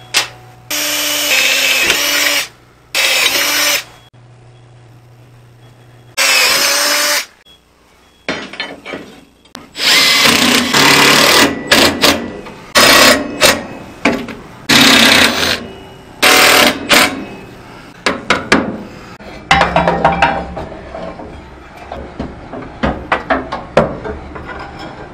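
Cordless drill drilling holes in steel in repeated bursts of one to two seconds, the motor pitch sagging as each run ends. Lighter metal knocks follow in the last few seconds.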